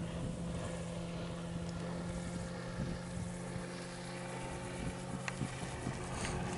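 Boat motor running at a steady, unchanging pitch, with a couple of light clicks near the end.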